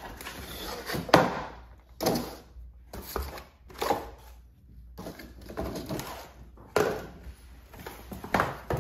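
Cardboard box being opened and handled by hand: a string of sudden cardboard thuds and scrapes, roughly one a second, as a plastic-wrapped e-bike battery is pulled out of its packaging.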